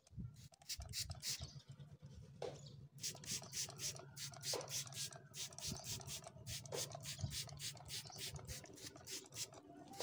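Trigger spray bottle squirting liquid onto a cow's hoof in quick hissing squirts. The squirts come a few at a time at first, then about four a second from a few seconds in. A steady low hum runs underneath.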